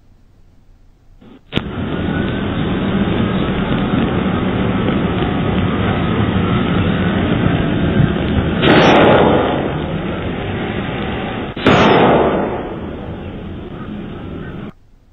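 Two gunshots about three seconds apart. Each is loud and sudden and trails off over about a second, over a steady background hiss, heard through a Ring doorbell camera's microphone.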